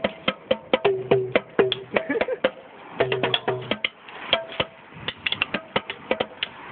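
Small belt-mounted drums struck in quick, uneven runs of short knocks, each with a brief pitched ring, pausing briefly about two and a half and four seconds in.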